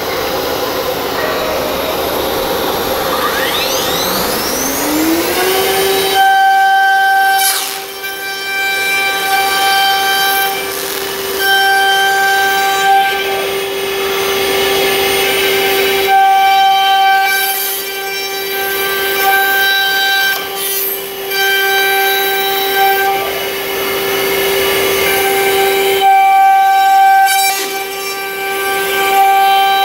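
CNC router spindle spinning up, its whine rising in pitch a few seconds in, then running at a steady high-pitched whine that swells louder at intervals.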